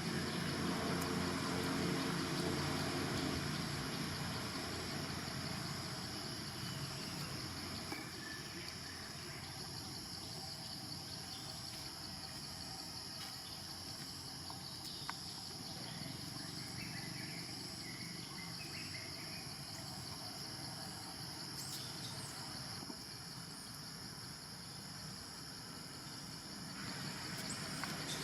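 Steady outdoor insect chorus with constant high-pitched drones. A low rumble underneath fades out after the first several seconds, and a few faint short chirps come around the middle.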